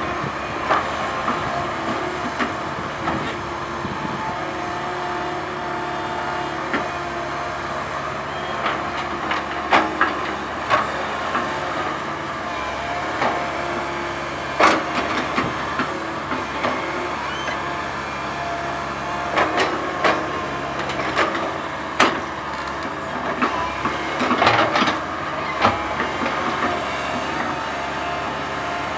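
Komatsu PC130 hydraulic excavator working: its diesel engine runs steadily under a hydraulic whine, with repeated sharp knocks and clanks from the machine as it levels soil.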